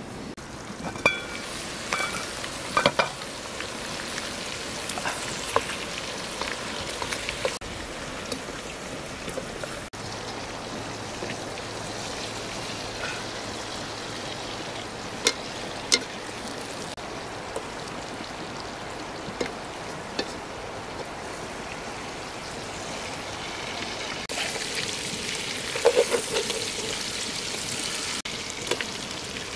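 Pig intestines frying in a metal pot over a wood fire with a steady sizzle, and a spatula now and then clicking and scraping against the pot.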